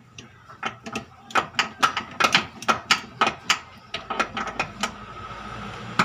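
Hand wrench clicking and clinking against a nut as it is turned in short, quick strokes: a rapid series of sharp metallic clicks, about four a second, that stops about a second before the end.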